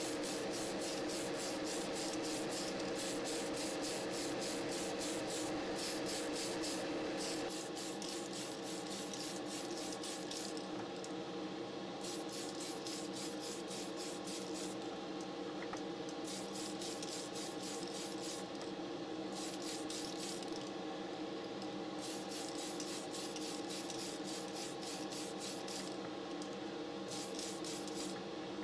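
Spray paint hissing onto a plastic model car body during its second coat, in on-and-off passes with short pauses. Underneath is the steady hum of a spray booth's extractor fan.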